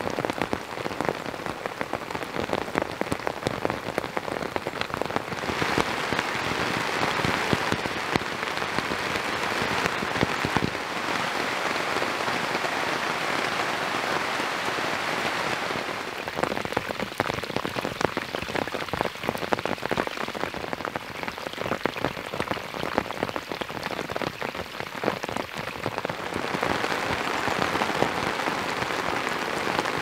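Heavy rain falling on a tipi tent's fabric, heard from inside: a dense, steady patter of drops that grows a little louder for a while and again near the end.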